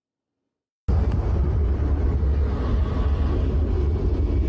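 After a moment of silence, a loud, steady low rumble from an outdoor phone recording starts abruptly about a second in.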